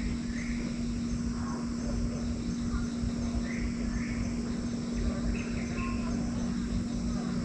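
Hill-forest dawn ambience: a steady high-pitched insect chorus with short bird chirps every second or so, over a low steady hum.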